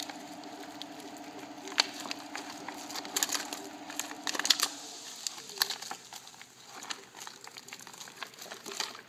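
Plastic blister packaging for treadmill bolts crinkling and crackling as the bolts and washers are pushed out of it, with irregular sharp clicks. A steady hum runs underneath and stops about five seconds in.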